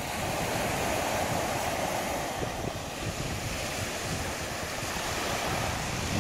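Small waves breaking and washing up on a sandy beach in a steady wash of surf, with wind rumbling on the microphone.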